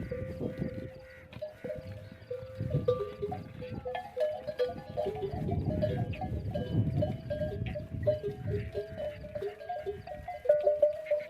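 Bells hung on a herd of camels clanking irregularly as the animals move, several bells of different pitches ringing over one another.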